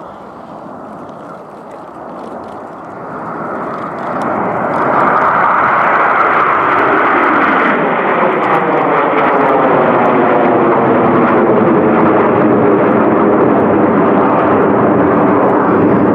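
A formation of Aermacchi MB-339 jet trainers flying past, their turbojet engines growing steadily louder over the first five seconds and then staying loud. Through the second half a sweeping, falling tone runs through the jet noise as the aircraft pass.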